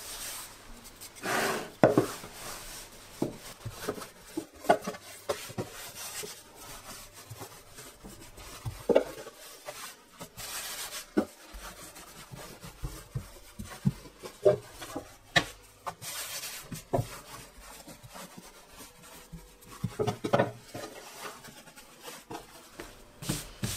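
Wooden rolling pin rolling out dough on a wooden worktop: a soft rubbing as it rolls, broken by irregular sharp knocks of the pin against the board.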